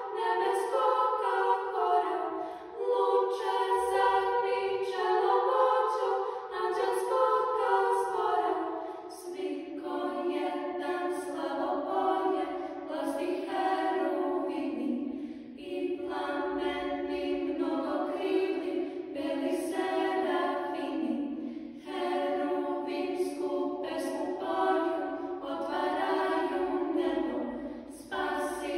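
Children's church choir singing a cappella, in phrases with short pauses for breath; the melody drops to a lower register about nine seconds in.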